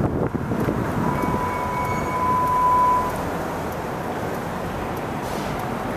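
Wind buffeting a camera microphone held outside a moving car, over the car's road noise. About a second in, a steady high whine sounds for about two seconds.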